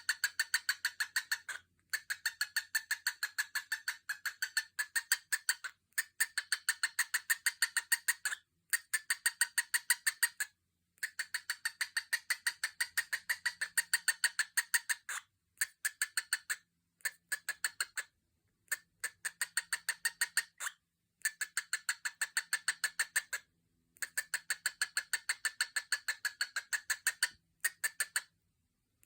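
Cockatiel making a rapid, even string of short clicking chirps, repeated in runs of one to three seconds with brief pauses between them.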